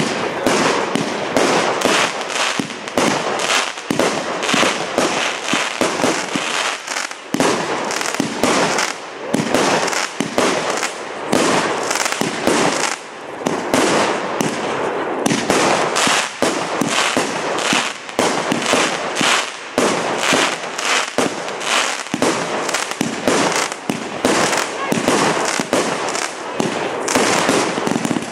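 Firework barrage cakes firing without a break: rapid shots launching and bursting overhead, several bangs and crackles a second.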